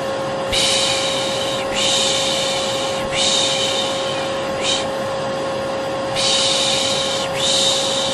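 Vacuum cleaner running steadily with a constant whine, overlaid by a repeated soothing 'shh' shushing sound used to settle babies: about six hissy shushes, each roughly a second long, coming one after another.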